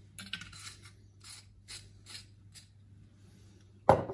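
Cap being twisted back onto a syrup bottle, a run of short ratcheting clicks. A single hard knock comes near the end as something is set down on the wooden cutting board.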